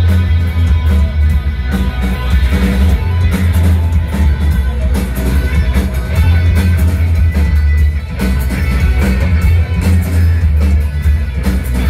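Industrial metal band playing live through a club PA: distorted electric guitar over heavy bass and drums, with the low end loudest.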